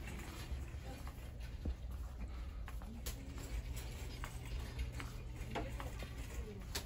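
Store ambience: a steady low hum with scattered small clicks and taps.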